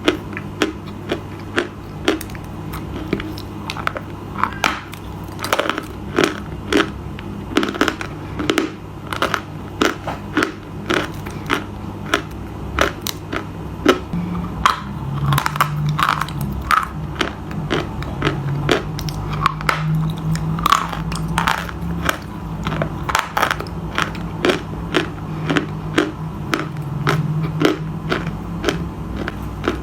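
Close-up crunching as something hard and brittle is bitten and chewed, a steady run of sharp crunches about two to three a second.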